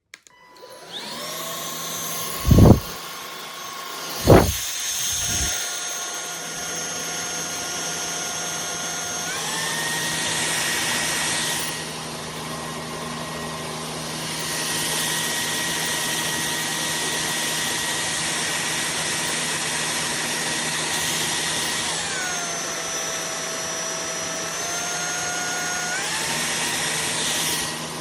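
Cordless stick vacuum cleaner's motor starting up with a rising whine and running steadily, its pitch stepping up about a third of the way through, dropping back later and rising again near the end. Two loud thumps a few seconds in.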